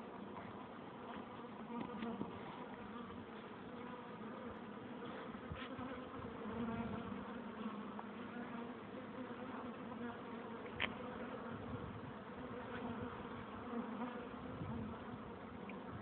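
Honeybees buzzing as they fly in and out of a hive entrance: a steady, many-voiced hum that swells as bees pass close. A few faint ticks and one short, sharp click about two-thirds of the way through stand out over the hum.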